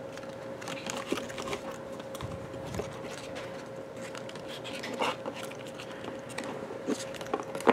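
Faint rustling and small clicks of stiff printed card pieces being handled and their small tabs folded down, over a steady faint hum.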